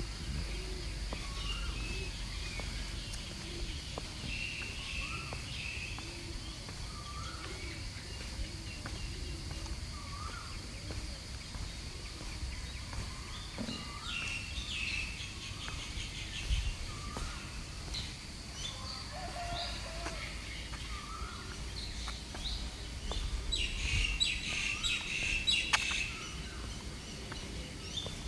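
Several birds calling, one repeating a short rising chirp every couple of seconds over a steady high hiss, with a busier spell of chirping near the end.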